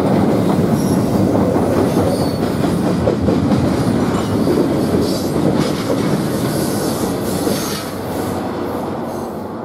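Union Pacific double-stack intermodal train's well cars rolling past: a steady rumble and clatter of wheels on rail, with a few faint high wheel squeals. The sound drops off near the end as the last car goes by.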